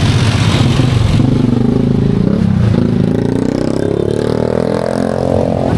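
A motor vehicle's engine running close by in street traffic, climbing steadily in pitch as it accelerates over the last few seconds.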